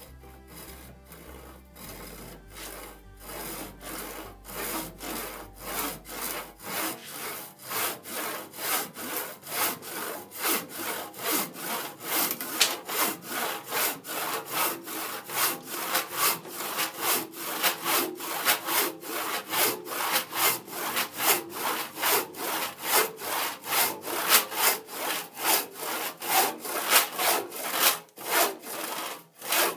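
E.C. Atkins handsaw, freshly sharpened to a fleam-tooth crosscut pattern, sawing across a wooden board. The strokes start light and grow louder to a steady pace of about two strokes a second, with a short pause near the end.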